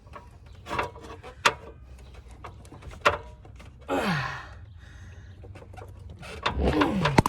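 Hands working a rubber radiator hose and its clamp onto a fitting: scattered sharp clicks and knocks. There are two short falling tones, one about four seconds in and one near the end.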